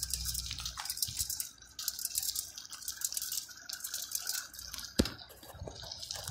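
Bicycle rattling and clattering as it rolls along a paved street, a dense run of light metallic rattles, with one sharp knock about five seconds in.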